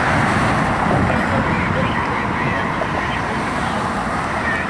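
Steady street traffic noise, with a car driving past.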